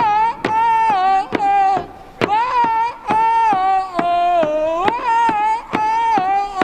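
A high voice singing long, gliding held notes, with sharp drum beats about every half second.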